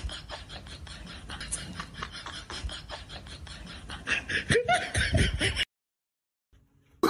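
A person laughing in a quick run of short bursts for about a second and a half, starting about four seconds in; before that only faint room noise with light taps, and the sound cuts off suddenly.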